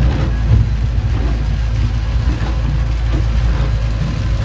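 Storm noise aboard a small boat: a loud, steady low rumble of wind with rain beating down.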